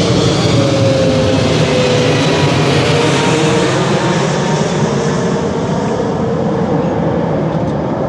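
Loud, steady roar of a large engine, with a faint tone that slowly falls in pitch, easing off slightly in the second half.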